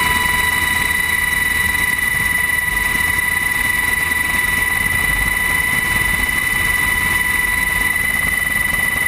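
Helicopter in flight heard from inside its cabin with the side door open: steady engine and rotor noise under a high, steady whine.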